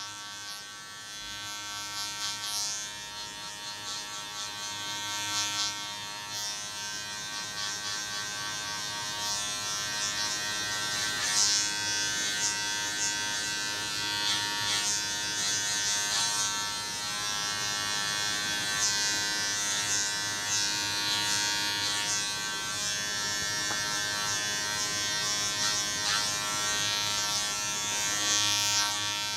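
Electric hair clippers running steadily, with a changing hiss over the motor's hum as they cut hair.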